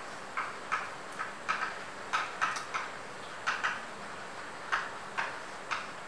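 Chalk tapping and scraping on a blackboard as words are written: short, irregular strokes, about two a second.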